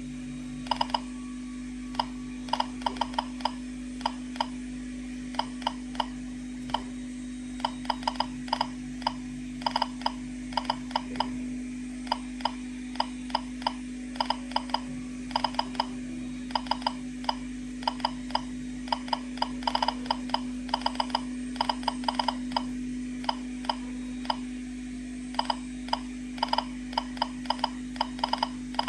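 Geiger-counter dosimeter clicking irregularly, several clicks a second with random quick clusters, as it registers gamma from a smoke detector's americium-241 source held a few centimetres away. A steady low hum runs underneath.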